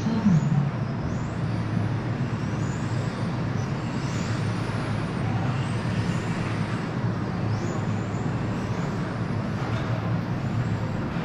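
Electric 1/10-scale RC touring cars lapping a carpet track, their motors whining high and rising and falling over and over as they speed up and slow down.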